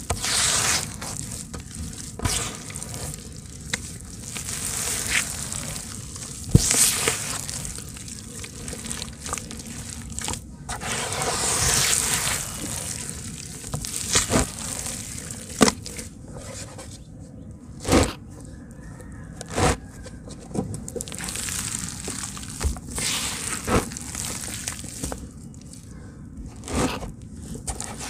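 Hands kneading and squeezing thick wet red dirt mud in a basin: irregular squelching and crackling, with sharp wet clicks now and then.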